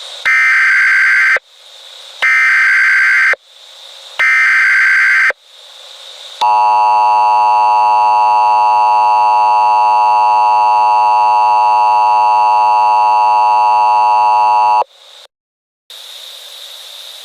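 Emergency Alert System tones: three bursts of SAME digital header data, each about a second long and two seconds apart, then the two-tone attention signal sounding steadily for about eight seconds before cutting off sharply. A faint hiss fills the gaps between the bursts.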